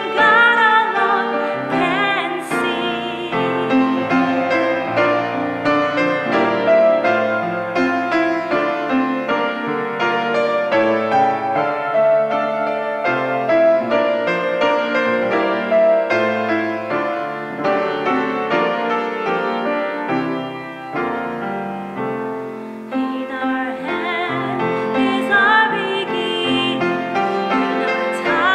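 Piano playing with a solo singer in a classical style. The voice has a wide vibrato and is heard at the start and again near the end, with the piano carrying the stretch between.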